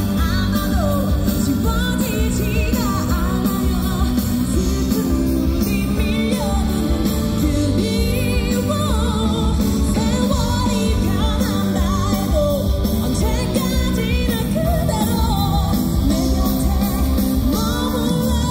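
A female singer singing a Korean ballad live into a handheld microphone over loud amplified backing music, heard through a concert PA. Her sung line rises and falls over a steady, full band-style accompaniment.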